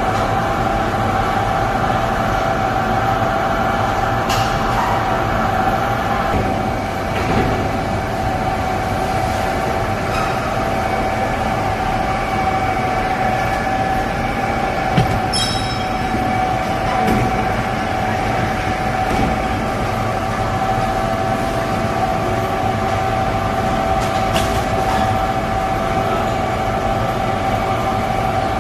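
Curved slat-type airport baggage conveyor running: a steady mechanical rumble with a constant whine, and a few faint clicks.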